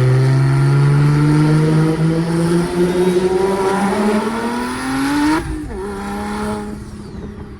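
A single-turbo BMW 335i's turbocharged inline-six is pulled hard through one gear, its pitch climbing steadily for about five seconds. The driver then lifts off abruptly, and the engine drops to a lower, fading note.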